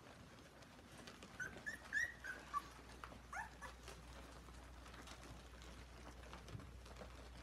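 Ten-day-old German Shorthaired Pointer puppies squeaking: a quick run of short, high squeaks about a second and a half in, then two more rising squeaks.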